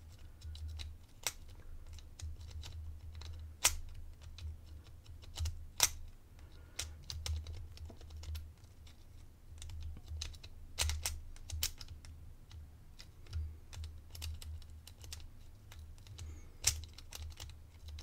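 Scattered small metallic clicks at uneven intervals, a few sharper than the rest, as the number dials of a Master Lock Pro Series 1178 four-dial combination padlock are nudged one number at a time with a small screwdriver, over a low rumble of the lock being handled. The dials are being worked to decode the combination by feel, hunting for the loose position of each dial's gate.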